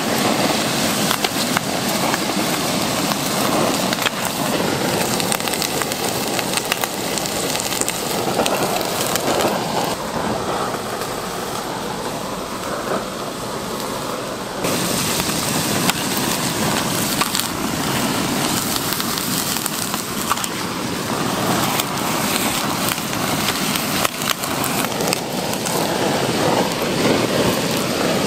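Cooking noise from pork offal being prepared: repeated knocks and scraping of utensils over a steady sizzle-like hiss.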